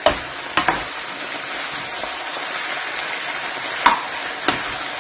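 Potatoes and onions frying in oil in a pan, a steady sizzle, with four sharp clicks of a stirring spoon against the pan.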